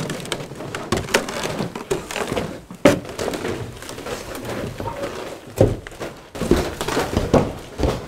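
Footsteps on wooden stairs and floorboards, with several heavy thumps at irregular moments.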